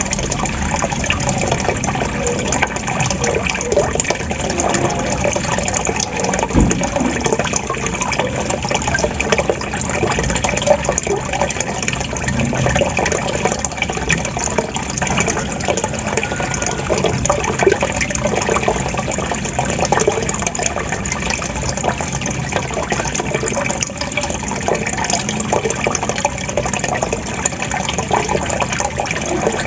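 Gurgling, trickling water running steadily and without pause, like a small waterfall or babbling stream.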